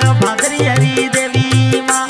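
Instrumental interlude of an Indian devotional folk song: a steady drum beat under a held drone tone and a melody line, with no voice.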